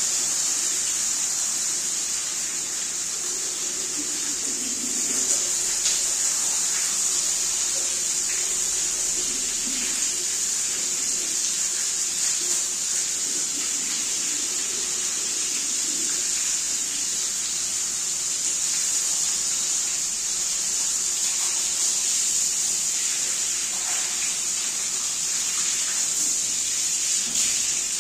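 Steady, loud spray of water from a pressure washer jet rinsing a rug, a continuous hiss.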